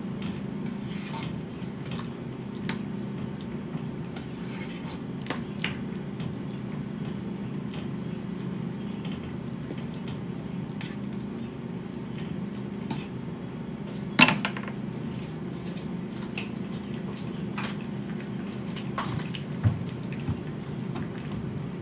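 Spatula stirring and scraping chunks of eggplant around a frying pan, with scattered light clicks and taps against the pan over a steady low hum. One sharp clack about two-thirds of the way through is the loudest sound.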